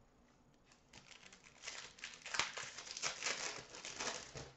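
Foil wrapper of a 2015-16 Upper Deck O-Pee-Chee Platinum hockey card pack being torn open and crinkled by hand, a crackly rustling that starts about a second in and stops just before the end.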